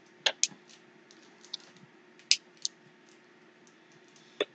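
Scattered sharp clicks and crinkles of a small clear plastic bag being handled as tiny screws are picked out of it.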